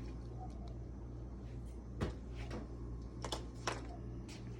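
A few sharp clicks and knocks from a car's trunk latch releasing and the trunk lid being opened, over a steady low hum.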